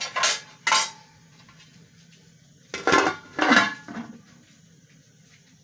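Metal cookware clattering as a pot and its lid are handled: two short clanks near the start and two more about three seconds in.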